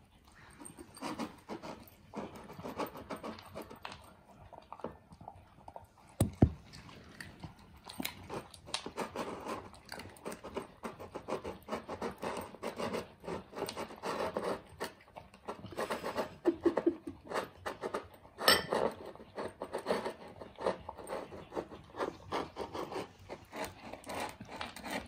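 Dogs eating dry kibble from bowls: irregular crunching and chewing with the bowl knocking. A single louder thump comes about six seconds in.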